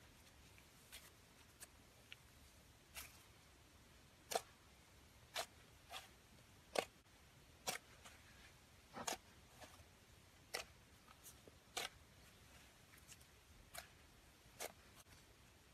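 Slime being kneaded and squeezed by hand, giving sharp, irregular pops and clicks about once a second.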